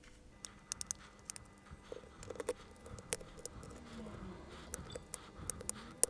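Scattered small sharp clicks and ticks of plastic prying picks working around the glued front screen of an iPod Touch 5th generation, irregular and a few a second.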